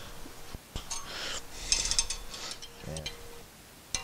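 A wrench turning a bolt threaded into a brake rotor, with metal clicks and scraping as the bolt presses against the hub to push the rotor off.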